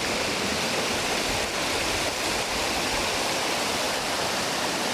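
Waterfall in heavy flow: a steady, even roar of falling, rushing water.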